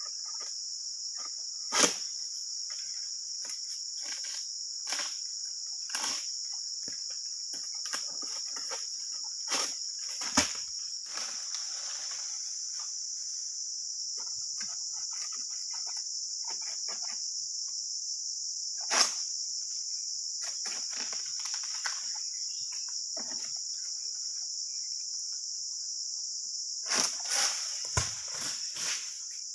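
Steady high-pitched drone of insects, broken by scattered sharp knocks and rustles from a long-poled harvesting sickle (egrek) working the fronds in the crown of a tall oil palm. The loudest knocks come about two seconds in, near ten and nineteen seconds, and as a cluster near the end.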